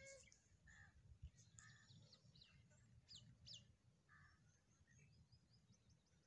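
Faint birds chirping and calling: scattered short notes and quick falling whistles, with a run of small high notes near the end, over a low rumble.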